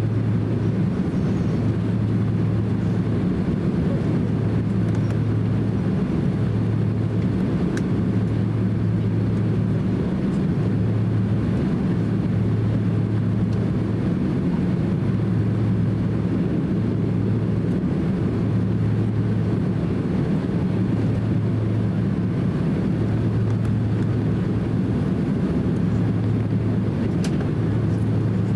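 Cabin noise of a Boeing 767-300 taxiing: a steady low rumble from its twin turbofan engines at taxi power, with a low hum that swells and fades every second or two.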